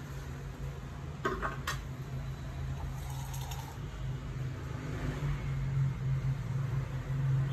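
A steady low hum, with two short knocks a little over a second in.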